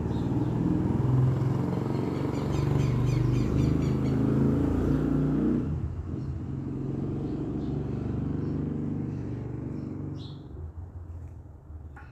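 Low rumble of a motor vehicle's engine running, loudest for about the first six seconds and then dying down. A few faint clicks near the end.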